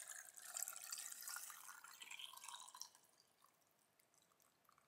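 Vinegar-and-water brine poured in a thin stream from a glass measuring jug into a glass jar of boiled eggs: a faint trickle and drip that fades out about three seconds in.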